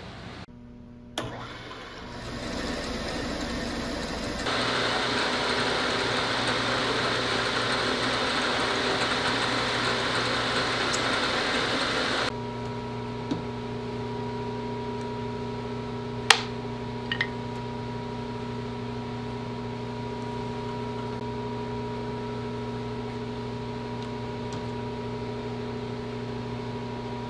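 Bridgeport milling machine's spindle motor coming up to speed and running steadily. A louder, noisier stretch in the first half cuts off abruptly, leaving a steady hum, and a couple of sharp clicks sound near the middle.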